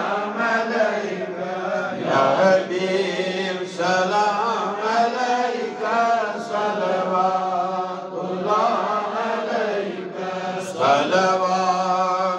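A man chanting a devotional recitation through a headset microphone and loudspeaker system, in long, wavering held notes, over a steady low hum.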